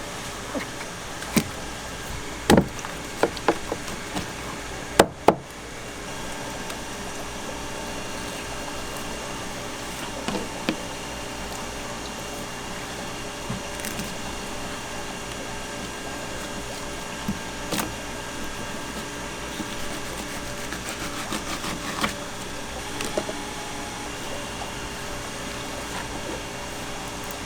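Knife knocking on a wooden cutting board as fish are cut up: a cluster of sharp knocks in the first few seconds, then scattered single taps, over a steady mechanical hum.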